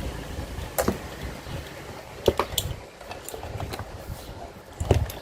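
Scattered sharp clicks and knocks of small hard objects being handled, with the sharpest about two seconds in and the loudest near the end, over a low rumble.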